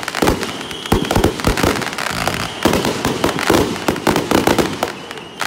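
Aerial fireworks bursting overhead: a dense, irregular run of bangs and crackles that eases off a little near the end.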